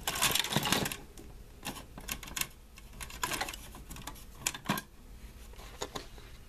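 A bare network-switch circuit board being pulled from a stack and handled: a rustle of scraping and rattling in the first second, then scattered sharp clicks and knocks.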